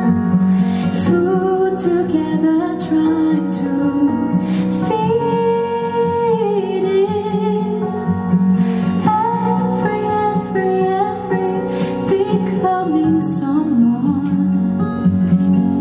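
A woman singing live into a handheld microphone, holding long notes with vibrato, over guitar accompaniment.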